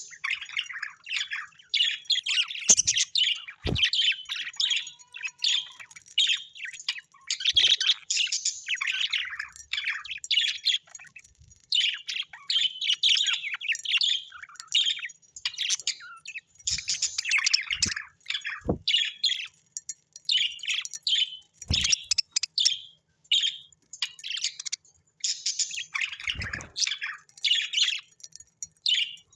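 Several birds chirping and tweeting without pause in quick, overlapping high calls, with a few short knocks among them.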